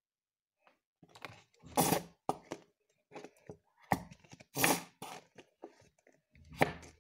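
A nearly empty squeeze bottle of white glue being squeezed and shaken upside down, sputtering and spurting out the last glue and air in short irregular bursts starting about a second in, the loudest near two and five seconds in.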